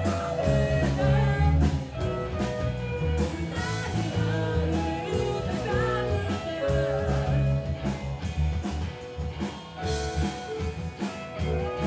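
Live rock band playing: a woman singing lead into a microphone over electric bass, drum kit and keyboard, with a steady drum beat.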